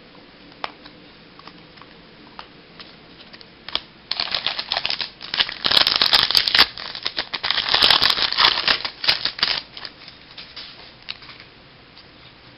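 Baseball trading cards and their packaging being handled: a few light clicks, then a dense run of rustling and rapid clicking from about four to ten seconds in.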